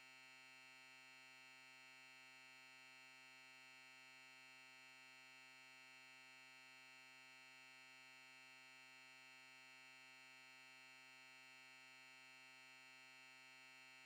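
Near silence with a faint, unchanging hum.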